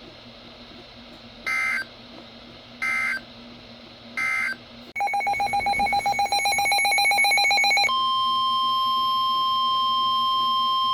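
EAS/SAME digital data bursts: three short screechy chirps of the end-of-message code. About five seconds in, a loud, rapidly pulsing electronic buzz starts. Near eight seconds it gives way to the steady NOAA Weather Radio 1050 Hz warning alarm tone, which signals that a new warning is coming.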